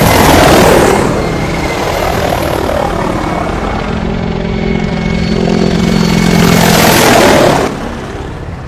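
Low-flying military helicopters passing close, their rotors and turbine engines loud and steady, swelling at the start and again about seven seconds in, then dropping away.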